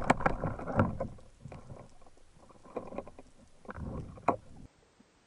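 Water splashing and sloshing around a freediver at the sea surface, heard on a camera at the waterline, in irregular bursts. It stops abruptly near the end.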